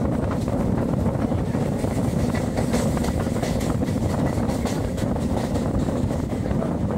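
A passenger train running along the track, heard from an open carriage door: a steady loud rumble of wheels on rail, with a run of sharp clicks in the middle.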